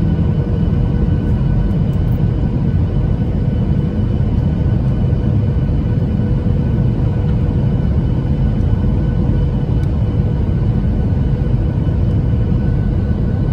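Steady cabin noise of a jet airliner descending on approach, heard from a window seat over the wing: a loud, even low rumble of engines and airflow with faint steady engine whine tones above it.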